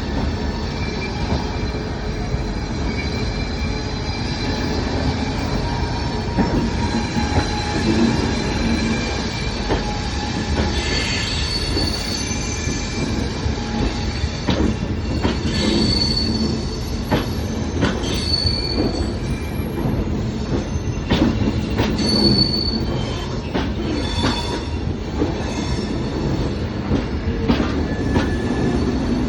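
Coaches of an Indian Railways express passenger train rolling past as it departs, with a steady rumble, wheels giving short high squeals on and off and irregular sharp clicks over the rail joints.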